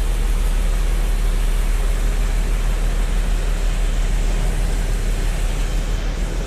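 Heavy diesel engines of a heavy-haul transport rig running steadily, with a deep, constant rumble under a continuous noise.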